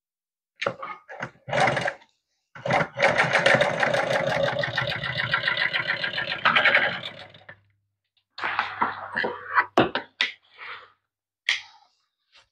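Industrial flatbed sewing machine stitching two pieces of vinyl together: a fast, even needle rattle in one steady run of about five seconds, with shorter start-and-stop bursts before and after it.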